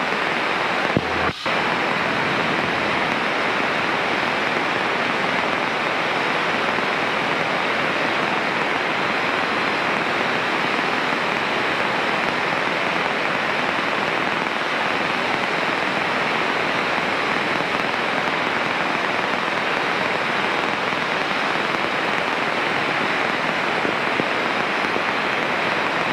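Steady hiss of radio static on the aircraft's VHF radio feed, even and unbroken, with a single short click about a second in.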